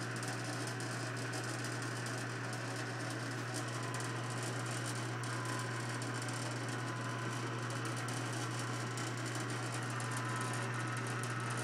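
Clausing 6315 metal lathe running, its motor and gearing giving a steady low hum under an even mechanical whir.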